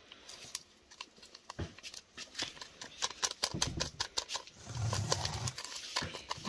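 Metal spoon clicking and scraping against a plastic mixing bowl and a paper sachet as powder is stirred into cake batter: a run of quick light clicks and scrapes. A low background sound comes in around the middle.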